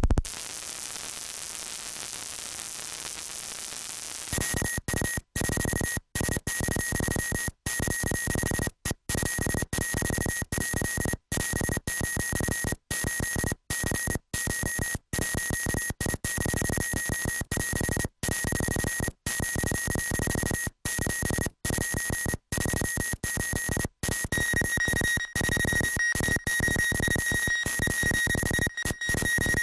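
Electronic noise music: an even hiss for about four seconds, then a harsher wall of noise with steady high-pitched tones, chopped by sudden dead-silent cuts at irregular moments.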